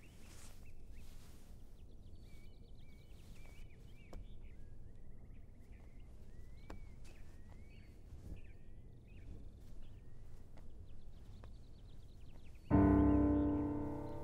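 Quiet ambience with faint bird chirps and a few soft taps, then, near the end, a loud piano chord struck suddenly and left to ring and fade.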